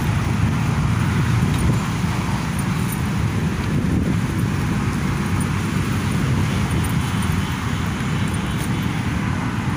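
Steady noise of road traffic from a busy city boulevard, a continuous rumbling wash with no distinct events.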